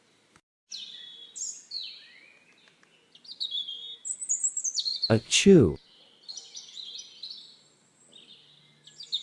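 Birds chirping in short high calls, broken about five seconds in by a loud cartoon sneeze, 'achoo', whose voice falls in pitch.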